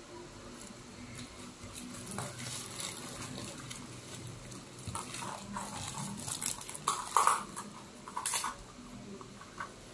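Paper burger wrapper crinkling and rustling in irregular crackles as it is handled and folded back around the burger, loudest in the second half.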